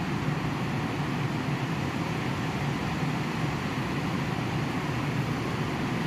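Steady rain falling on a tin roof, an even unbroken rush of noise.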